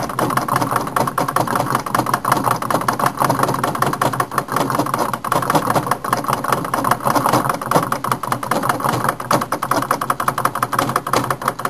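Homemade alcohol-fired Stirling engine running, its crank and piston clattering in a fast, even rhythm. The builder suspects a little moisture inside the piston is keeping it from running its best.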